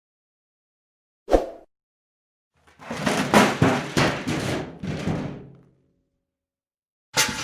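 Garbage bin being handled: a single knock about a second in, then about three seconds of quick clattering knocks and rattles, and another sharp knock near the end.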